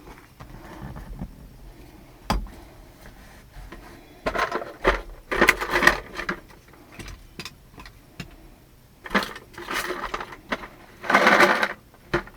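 Clicks and clattering of small metal parts and tools being handled while working on a pickup truck's door handle, in two bursts of rattling and scraping with scattered single clicks.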